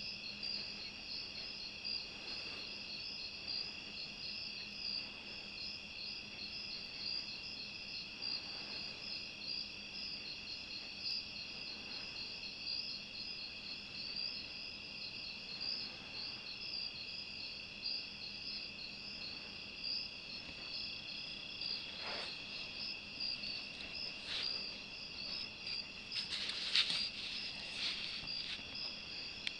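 Steady chorus of night insects: several high droning tones with a fast pulsing trill above them. A few handling knocks and rustles near the end, as the rifle and scope are swung off target.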